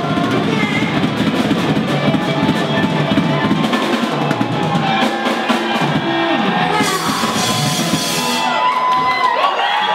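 A live band plays loud, heavy, drum-driven music, with rapid drum-kit hits over bass and guitar. About nine seconds in the playing thins out and the crowd begins shouting and cheering.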